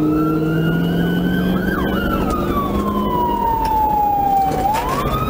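Police siren in wail mode: one long slow rise and fall, sliding down over a few seconds and climbing again near the end, with fainter sirens of other units crossing it. Engine and road noise of the moving patrol car runs underneath.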